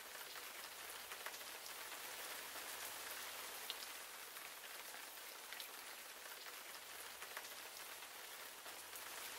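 Steady rain falling: a soft, even hiss with a few scattered drop ticks.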